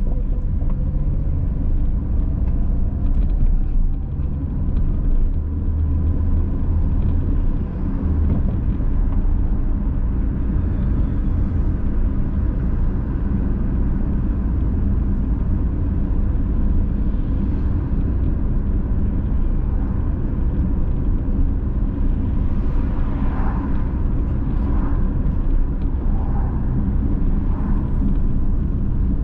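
A car driving in city traffic, heard from a dashcam inside it: a steady low rumble of engine and tyre noise. Near the end, a few short higher tones come about a second apart.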